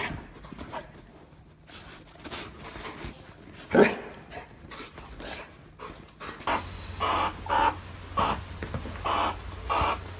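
Animal sounds: scattered short noises with one loud sharp call about four seconds in, then after a cut a steady low hum under a run of short repeated calls, about two a second.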